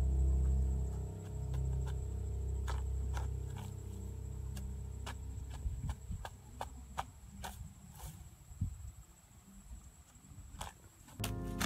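A metal hand digging blade chipping and scraping into hard, dry soil: irregular sharp clicks and scrapes. Background music fades out over the first few seconds and comes back near the end.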